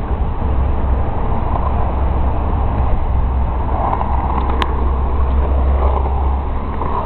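Skateboard wheels rolling over concrete: a steady low rumble, with one sharp click a little past halfway.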